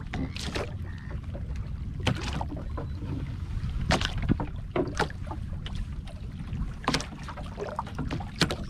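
Irregular water splashes and knocks, like water slapping a small boat, over a steady low rumble of wind on the microphone.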